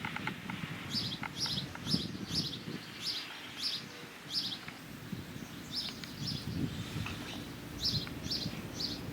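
Small bird chirping in repeated runs of three or four quick, high notes, with pauses between the runs, over low rustling. A few light clicks come near the start.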